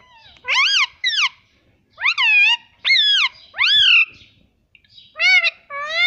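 Indian ringneck parakeet calling loudly right at the microphone: seven shrill squawks that each rise and fall in pitch, in three quick bunches of two, three and two.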